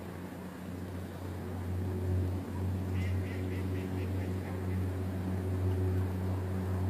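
A steady low hum throughout, with a quick run of about eight short, higher-pitched calls from a bird, such as a duck, about three seconds in.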